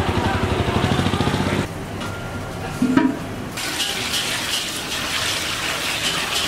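Water pouring in a steady stream into a metal cooking pot, splashing as the pot fills, starting about three and a half seconds in. Before it, a louder, rougher stretch of noise cuts off abruptly about a second and a half in.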